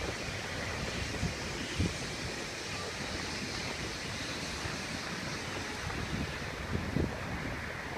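Wind buffeting the microphone: a steady rush with irregular low thumps, over the faint rumble of the Puffing Billy train's carriages rolling away across a timber trestle bridge.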